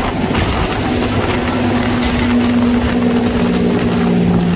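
Straight-piped diesel semi-truck engines running at highway speed, a loud steady drone over wind and road noise, heard from inside the cab. A lower drone joins about three seconds in.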